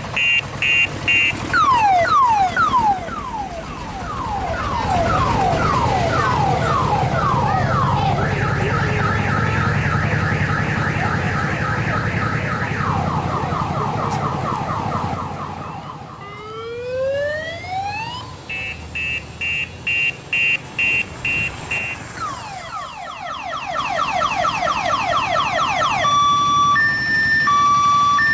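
Odong-odong mini train's multi-tone electronic siren cycling through its patterns: runs of fast falling sweeps, a steady warble, a few rising whoops, pulsed beeps, and a slow two-tone alternation near the end, over a low rumble.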